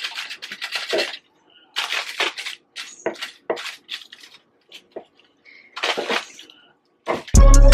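Serrated bread knife sawing through a braided challah loaf on aluminium foil, in short spurts of strokes with pauses between. Loud music with a steady beat comes in suddenly near the end.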